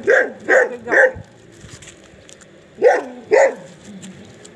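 A dog barking: three quick barks, a pause, then two more.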